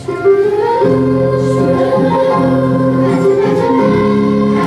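Children's choir singing with instrumental accompaniment, coming back in after a brief dip in loudness at the start.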